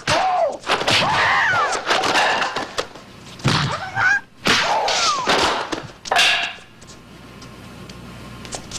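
Film fight soundtrack: a martial artist's high-pitched, wavering battle cries, several in a row, mixed with thuds of blows from a staff and nunchaku fight. It dies down for the last two seconds or so.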